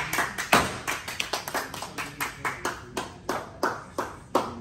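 A coconut struck repeatedly against a brick on a hard floor to break it open: a string of sharp knocks, about two to three a second, the hardest near the start.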